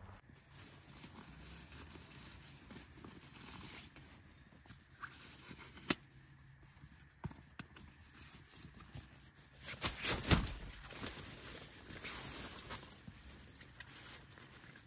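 Rustling of nylon camping gear, with a few footsteps on a pine-needle forest floor and a couple of sharp clicks. The loudest rustle comes about ten seconds in, as sleeping gear is pulled out of its stuff sack and spread across the tent floor.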